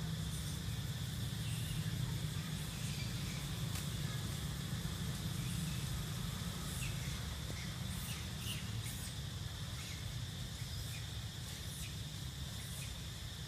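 Forest ambience: a steady low rumble under a continuous thin high-pitched hum typical of insects, with a few faint short ticks in the second half.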